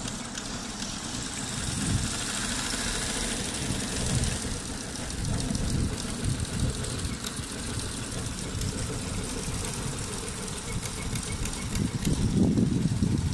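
Multi-needle computerized embroidery machine running and stitching: a steady, fast mechanical clatter of needle strokes, louder for a moment near the end.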